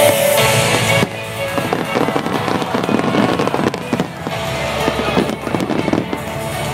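Fireworks bursting and crackling in rapid succession, with music playing alongside. The sound is loudest in the first second, then drops to a dense run of crackles and bangs.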